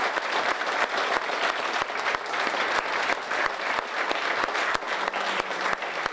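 A roomful of people applauding, many hands clapping in a dense, steady patter.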